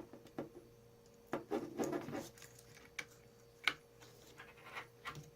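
Small clicks and rubbing of hands handling a USB cable at the RAMPS board's port, a handful of separate clicks with a short cluster about a second and a half in, over a faint steady hum.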